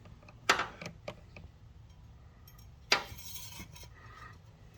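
Light metal-on-metal clinks and rubbing from handling: a short clink about half a second in, and a louder clatter with a brief rustle about three seconds in.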